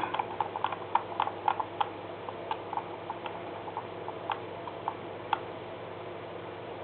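A run of light, irregular clicks, quick at first and then sparser, stopping a little after five seconds in, over a faint steady hum.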